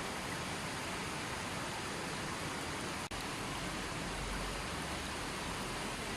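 Running water splashing and flowing in a steady, even rush, with a split-second dropout about three seconds in.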